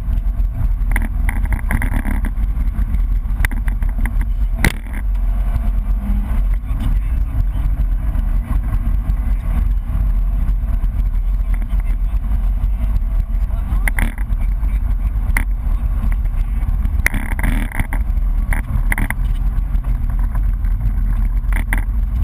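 BMW E30 rally car at speed, heard from inside the cabin: a dense, steady rumble of engine and road noise, with a few sharp knocks from the car over the stage.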